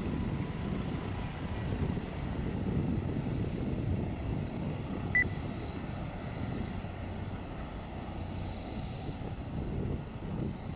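Bell 407 helicopter hovering low, its turbine and rotor running in a steady, fluctuating rumble with a faint high whine above it. A single short, high chirp cuts through about five seconds in.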